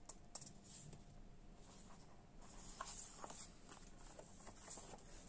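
Faint rustling and light ticking of paper sheets and labels being handled and shuffled by hand, a little busier from about halfway through.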